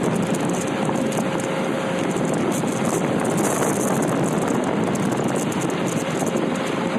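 Steady rushing noise of wind and sea aboard a ship rolling in heavy weather, with a faint steady hum in the first couple of seconds and again near the end.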